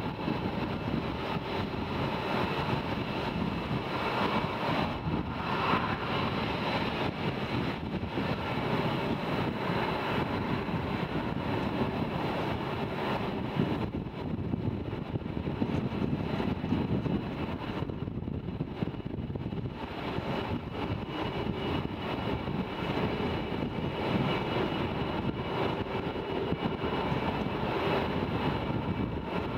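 Lockheed Martin F-22 Raptor fighters taxiing, their twin Pratt & Whitney F119 turbofan engines running at low power with a steady rumble and a high whine.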